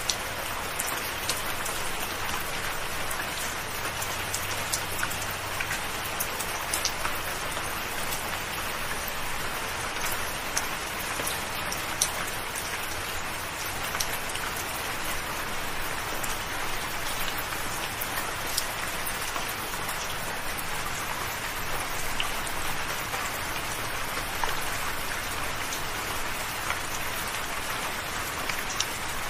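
Steady soft rain: an even hiss of falling rain with many small, scattered drop ticks on a surface.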